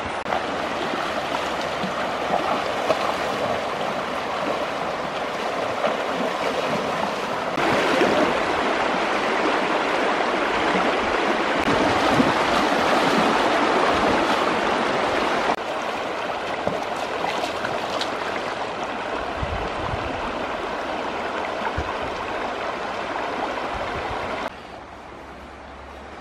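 Fast, shallow river rushing and splashing over stones as someone wades across it, a steady dense rush that cuts off abruptly near the end.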